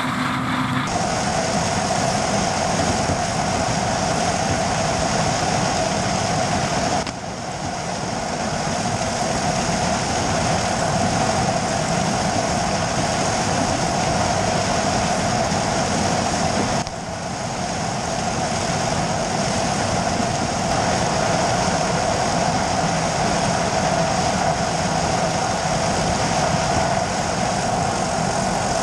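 John Deere 9570 STS combine running under load as its corn head takes in rows of dry corn stalks, heard close to the header: a steady mechanical din with a constant whine over it.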